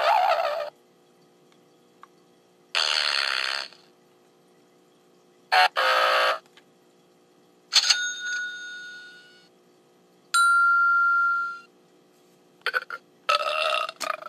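A novelty sound-effects machine playing one short canned effect after another, about six in all, each lasting about a second with a brief pause between. The effects include a falling sweep, noisy bursts, a fading bell-like ring and a steady electronic tone.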